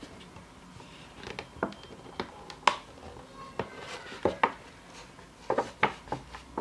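Stiff plastic packaging clicking and crackling in irregular sharp snaps as a promo trading card is worked free of its plastic holder.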